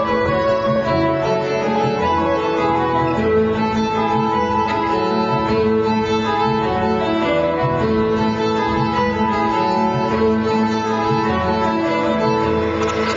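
Fiddle-led instrumental dance music with strings, playing loudly and steadily; applause begins near the end.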